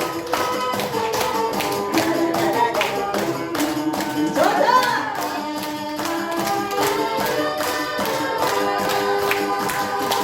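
Music with a steady quick beat and a sung melody.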